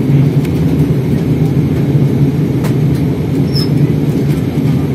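Steady low cabin noise of an airliner in flight: engine drone and rushing air heard from inside the cabin, with a couple of faint ticks midway.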